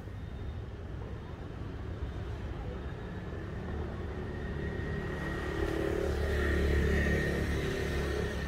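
A passing motor vehicle's low rumble, swelling from about halfway through and loudest near the end.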